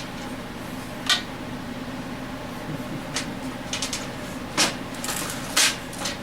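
Metal tools and engine parts clinking and knocking a handful of times during a small-engine teardown, over a steady low hum.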